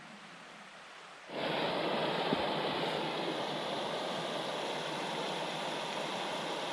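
Steady rush of a rocky mountain stream. It is fainter at first and becomes much louder a little over a second in, with one brief knock a second after that.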